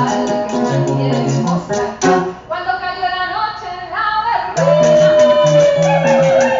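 Live acoustic guitar strummed in a steady rhythm with singing; midway the strumming drops back to held chords, then picks up again under one long sung note that slowly falls in pitch.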